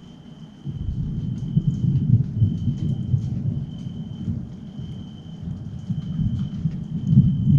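Thunder rumbling from a night thunderstorm: a low rumble starts abruptly about a second in, rolls on, eases off midway and swells again near the end.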